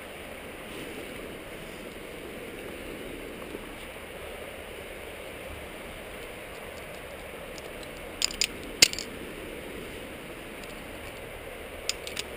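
Steady hiss, with a few sharp metallic clinks of climbing gear: three close together about eight seconds in and two more near the end.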